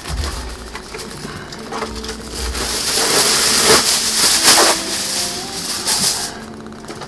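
Aluminium foil being pulled off a roll and crinkled as it is spread out, a rustling crackle that is loudest a few seconds in.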